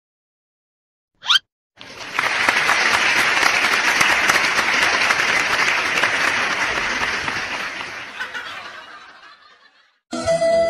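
Crowd applause, coming in about two seconds in after a brief swish, and fading out near the end.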